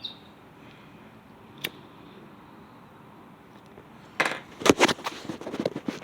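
Faint steady background noise with a single sharp click about a second and a half in, then a run of clicking and rattling, like small hard objects being handled, from about four seconds on.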